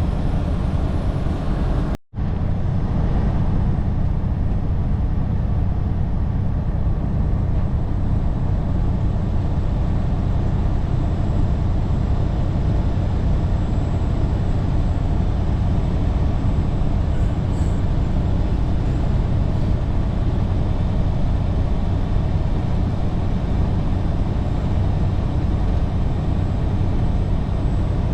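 Steady low drone of a semi-truck's engine and road noise, heard from inside the cab while driving, with a brief total cut-out about two seconds in.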